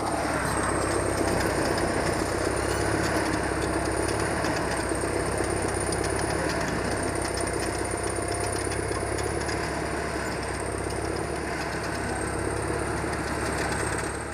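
A large engine or machine running steadily, with a low hum and a thin high whine above it.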